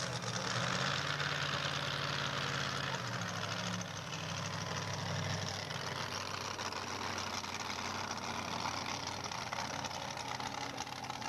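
Engine of a 2wd pulling truck idling and running at low speed, with a steady low note that shifts about four seconds in.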